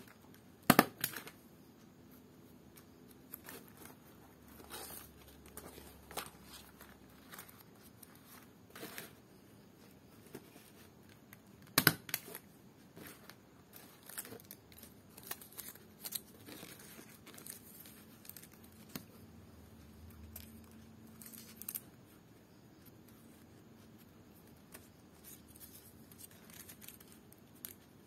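Small hand stapler clicking shut as it staples palm-leaf strips, with two loud snaps about a second in and near the middle and softer clicks between. Between the clicks the leaf strips rustle and crinkle as they are handled.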